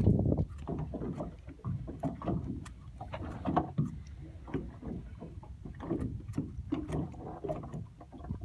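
Mustad bait scissors snipping through small baitfish: an irregular string of short, crisp cuts over a steady low rumble.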